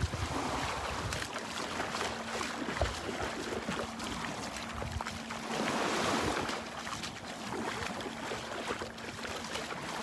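Small Gulf waves lapping and washing onto a sandy shore, with wind on the microphone; one wave washes in louder about six seconds in. A faint steady hum runs through the first half and stops about halfway.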